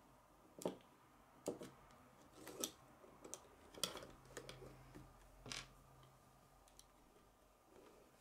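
Faint, irregular clicks and taps of plastic K'nex parts being handled as a small yellow piece is slid onto a grey rod fitted with a wheel.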